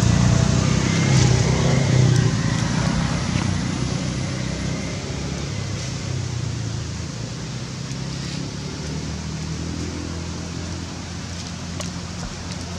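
A passing motor vehicle's engine hum, loudest at first and fading away over several seconds. Steady outdoor background noise is left behind, with a few faint clicks near the end.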